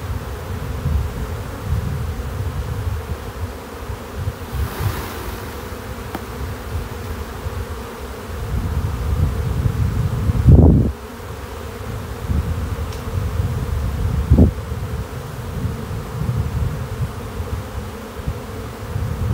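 Honeybees buzzing around an open hive, a steady hum with low rumbling noise underneath. A brief dull thump about halfway through.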